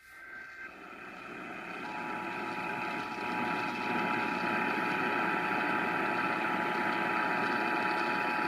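Hiss and static of a weak, distant AM/FM radio signal, fading up over the first few seconds and then holding steady. About two seconds in, a faint two-tone EAS attention signal (853 and 960 Hz together) starts under the static and holds.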